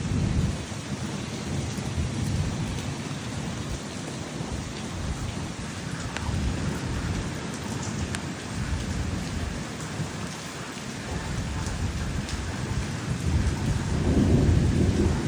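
Steady rain falling, with thunder rumbling low underneath, the rumble building to its loudest near the end; a few faint drop ticks.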